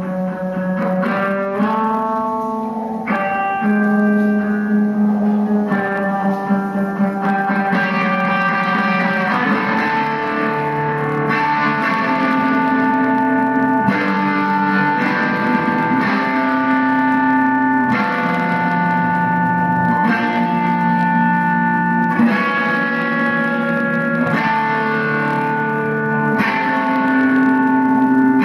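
Electric guitar played through effects, sustained notes and chords ringing into one another and changing every second or two.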